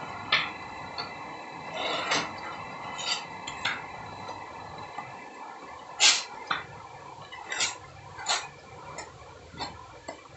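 Metal putty knives scraping and clinking while wall putty is loaded and spread on a wall: about a dozen short, sharp scrapes and taps at irregular intervals, the loudest about six seconds in.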